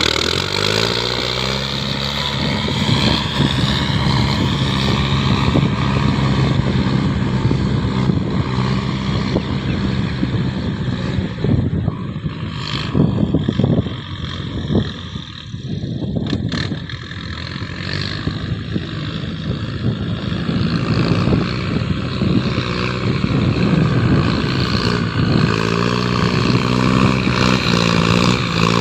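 An engine revving up and running steadily, dropping back and unsettled partway through, then speeding up again near the end.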